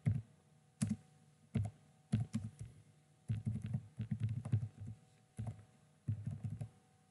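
Computer keyboard being typed on in short, irregular bursts of keystrokes with brief pauses between them, as a terminal command is entered.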